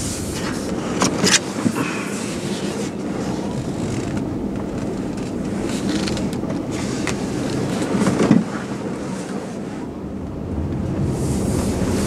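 Running and road noise of a Tesla Model S with air suspension driving slowly, picked up by a microphone clipped to the right front shock absorber. A steady rumble carries a couple of brief knocks, about a second in and again near eight seconds.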